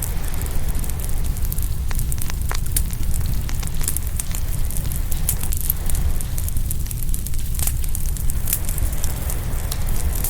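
Open wood fire crackling, with frequent sharp pops scattered all through, over a steady low rumble.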